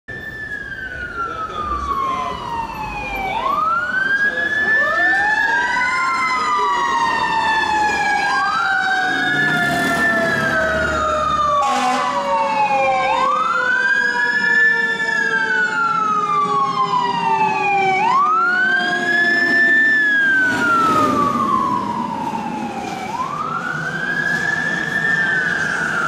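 Fire engine siren wailing, rising quickly and falling slowly about every five seconds, with a second, lower siren tone gliding slowly down underneath.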